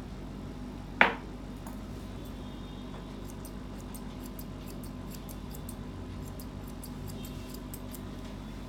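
Grooming scissors snipping the fur on a Maltese's leg: a run of light, crisp snips at about three or four a second through the second half, over a steady low hum. A single sharp knock about a second in is the loudest sound.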